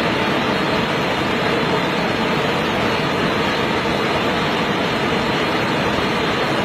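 Steady rushing of river water: an even noise with no distinct events.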